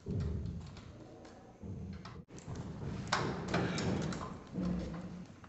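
Screwdriver turning the screws that fix a ceiling fan's metal blade to the motor housing: irregular scraping and light metal clicks, with a brief break a little over two seconds in.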